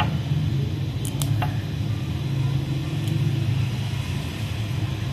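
A steady low rumble, with a few faint clicks about a second in.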